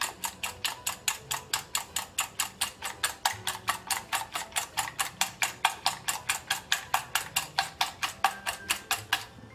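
Wire whisk beating eggs in a stainless steel bowl, the wires clicking against the metal in a steady rhythm of about four to five strokes a second, stopping just before the end.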